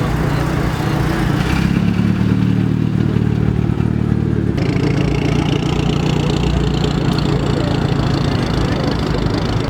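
Car engine running with a steady low drone, which changes abruptly to a different engine sound about four and a half seconds in.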